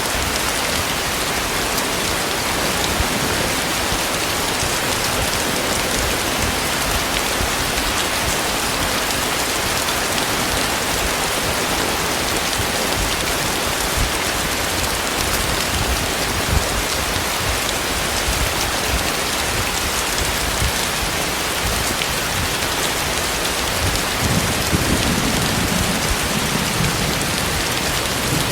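Heavy rain falling steadily. A brief low swell rises near the end.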